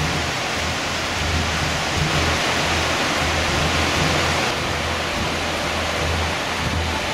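Rushing river rapids: a steady, loud hiss of whitewater.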